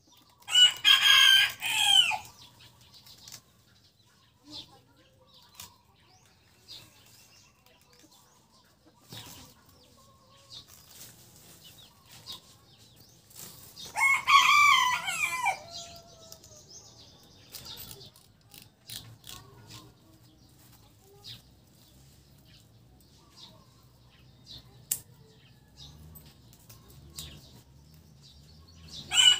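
Rooster crowing three times: about a second in, around the middle, and again at the very end. Faint clicks from hand tools trimming the plant come between the crows.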